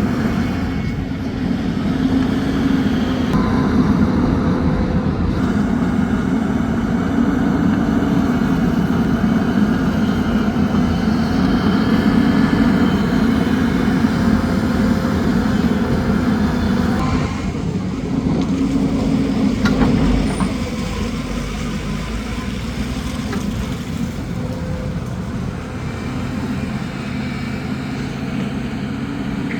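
A heavy engine running steadily at a construction site, settling a little quieter about two-thirds of the way through.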